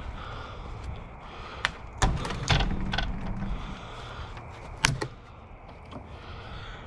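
Porch boards knocking and clunking as they are worked loose by hand: a few sharp knocks, a dull heavier thud about two and a half seconds in, and one more sharp knock about five seconds in.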